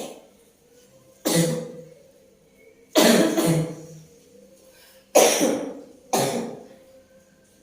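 A woman coughing in a fit of five or six harsh coughs spread over several seconds, one of them doubled: the persistent cough that has not cleared up.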